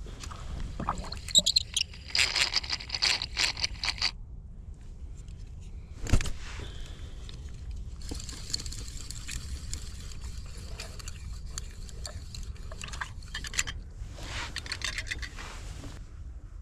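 Scraping and crunching noises in bursts, with a single sharp knock about six seconds in.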